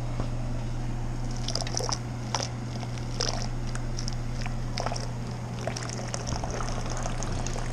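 Liquid trickling and splashing into the grain mash in a cooler mash tun, over a steady low hum. Scattered light clicks and splashes come through it.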